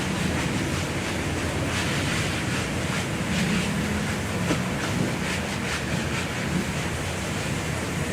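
Car-wash pressure washer spraying water in a steady hiss over a low motor drone, with a run of short splashing sounds about five seconds in.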